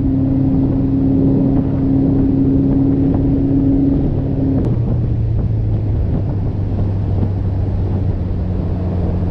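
Boat motor running steadily and loudly, its engine note dropping to a lower pitch about halfway through as the engine slows.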